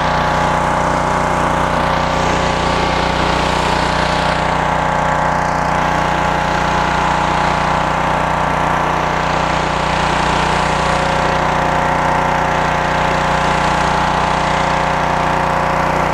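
Northern Tool 3000 psi pressure washer's engine running steadily under load, with the hiss of its water spray as the surface cleaner works the concrete.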